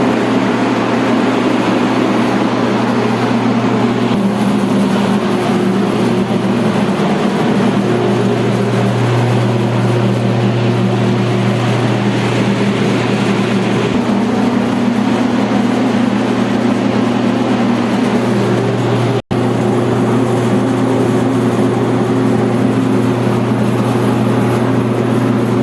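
Heavy machinery running steadily: a low hum with a few steady tones over a broad rushing noise, its pitch shifting slightly a few times. The sound drops out for an instant about 19 seconds in.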